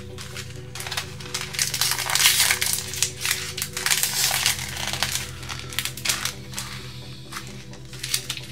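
Clear plastic packaging crinkling and rustling with papers as hands open a plastic sleeve and pull out printed inserts. The crinkling comes in bursts and is loudest from about two to five seconds in.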